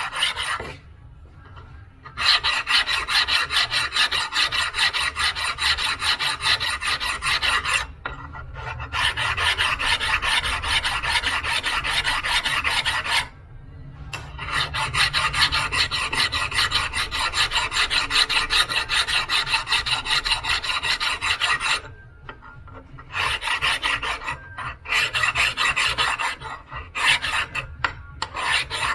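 Hand file rasping across the metal base flange of a Holley 94 carburetor held in a vise, in long runs of quick back-and-forth strokes with short pauses between them, to flatten the gasket surface.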